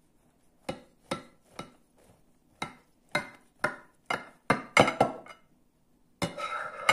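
Kitchen knife cutting down through a cooked stuffed cabbage, its blade knocking and clinking against the baking dish about ten times, then a longer scraping clatter of knife and tongs on the dish near the end.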